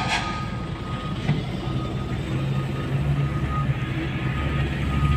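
Diesel truck engine running, heard from inside the cab: a steady low rumble that grows louder about three seconds in.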